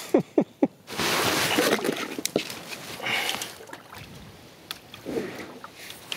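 Water splashing and sloshing, loudest for a second or so after a few short vocal sounds at the start.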